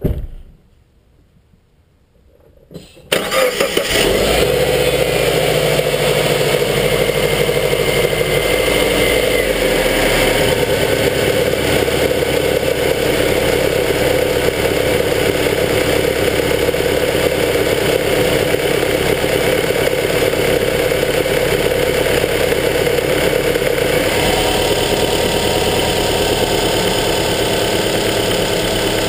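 Subaru Forester XT's turbocharged flat-four engine, heard from inside the engine bay, starting abruptly about three seconds in and then running at a steady idle. The tone of the idle shifts slightly around ten seconds in and again near the end.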